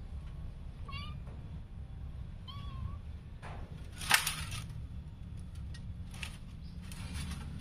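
Kittens mewing during a play-fight: two short high mews about one and two and a half seconds in, then a brief loud noisy burst about four seconds in, over a steady low hum.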